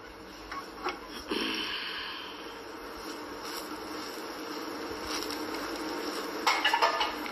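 Dosa sizzling on a hot flat pan with a steady hiss, while a metal spatula scrapes and taps against the pan a few times.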